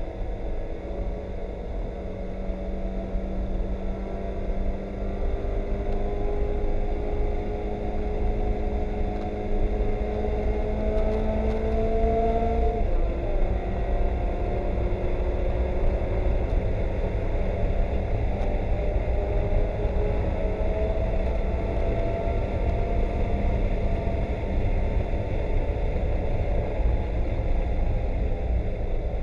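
Mazda Miata race car's four-cylinder engine heard from inside the cabin under sustained load. The revs climb slowly for about twelve seconds, drop abruptly, then climb slowly again, over a steady low rumble.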